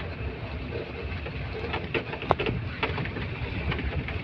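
Open-top safari jeep driving along a dirt forest track: engine running with steady tyre and road noise, and a few sharp knocks and rattles as it goes over bumps, the clearest about two seconds in.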